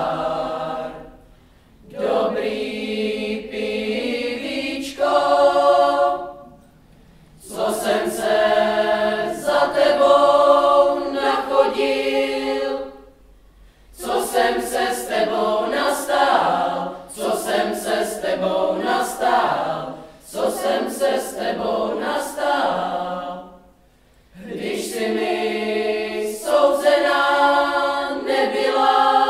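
Boys' choir singing a cappella, in phrases broken by short pauses.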